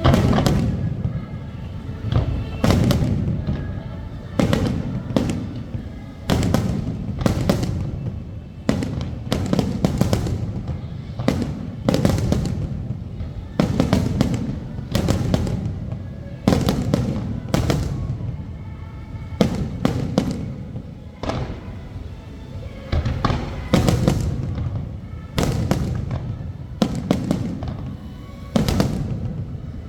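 Aerial fireworks bursting in quick succession, a deep boom with crackle about every second or two, over music.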